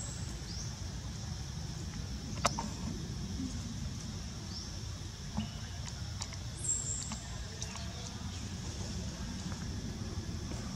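Outdoor forest ambience: a steady low rumble and a steady high hiss, with a few short rising chirps and a few sharp clicks, the clearest about two and a half seconds in.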